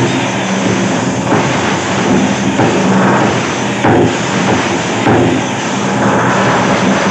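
Electric demolition hammer chipping old ceramic tiles and plaster off a bathroom wall: a loud, continuous rapid clatter over the motor's hum, with chunks breaking away.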